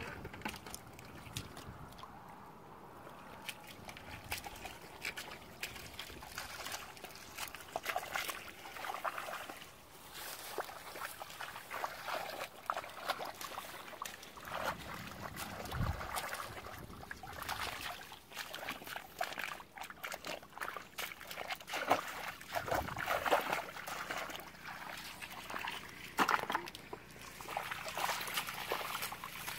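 Hands sloshing and splashing in a shallow muddy puddle: irregular small splashes and trickles, sparse at first and busier from about eight seconds in.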